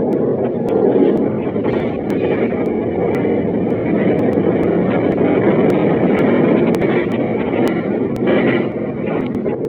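Train running with a steady rumble, heard through a low-quality flip-phone microphone.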